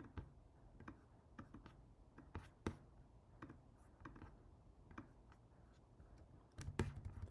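Computer keyboard typing and clicking: scattered single keystrokes, then a quick run of keys near the end.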